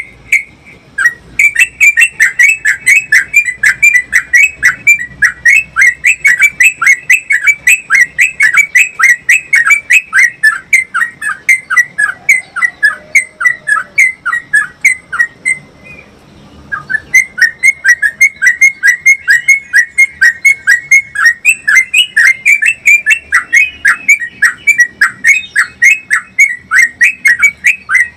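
Yellow-vented bulbul (trucukan) singing a long rapid-fire run of loud, short falling notes, about two to three a second. The run breaks off briefly past the middle, then resumes.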